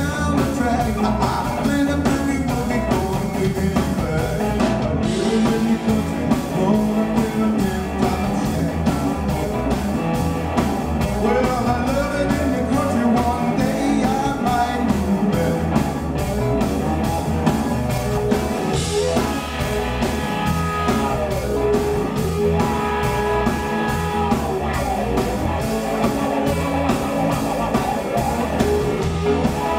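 Live electric blues band: a man sings over electric guitar, bass and drums keeping a steady beat, with the guitar holding long notes in the later part.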